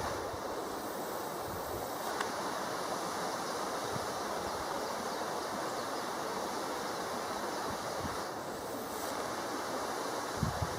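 Akaka Falls, a tall plunge waterfall, rushing steadily as an even wash of falling-water noise. A few low thumps near the end.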